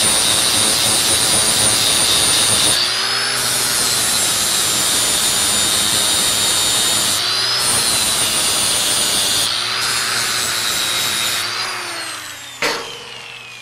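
Angle grinder with a flap disc sanding down plug welds on a metal bar: a steady high whine over grinding noise, its pitch shifting a few times as the load changes. Near the end the grinder spins down, falling in pitch, and a single sharp clank follows.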